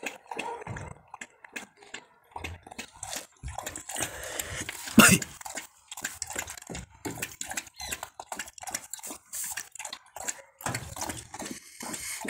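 Puppies nosing and pawing at a phone held right against them: irregular close-up scrapes, clicks and snuffles, with one loud sudden noise about five seconds in.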